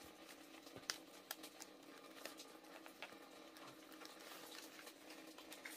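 Faint crinkling and light clicks of leaves and tying strips being handled as a square leaf-wrapped banh chung is tied up by hand, over a faint steady hum.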